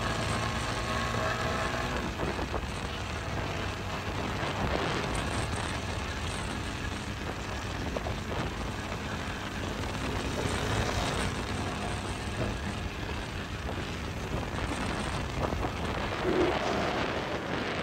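Motorcycle engine running as the bike cruises at a steady speed, heard from the rider's seat with road and wind noise rushing over the microphone.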